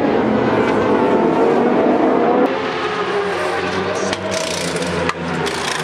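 Racing motorcycle engines running at speed on track, their pitch gliding up and down. About two and a half seconds in this gives way to pit-stop sound: sharp clatters and short bursts of hiss as a crew changes a superbike's wheels.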